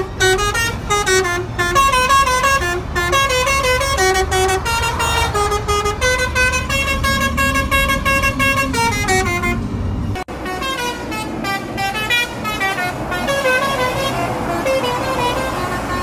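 Truck's multi-tone 'telolet' air horn playing a fast tune of stepped notes over engine and road rumble. About ten seconds in the sound drops out for a moment, then more horn tunes follow over heavier traffic noise.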